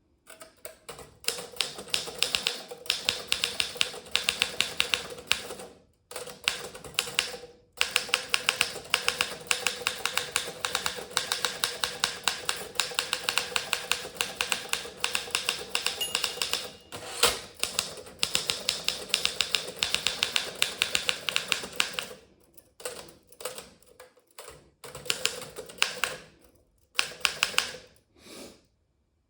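Remington Senior Writer (Torpedo 17a) portable typewriter being typed on fast: a rapid stream of key strikes, with short breaks about 6 and 7.5 seconds in, and more halting typing near the end.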